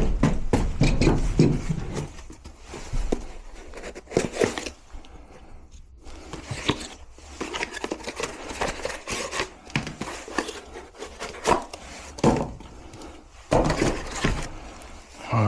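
Irregular knocks, clicks and rubbing of tools and metal gas-line parts being handled, with a burst of heavier clattering in the first couple of seconds.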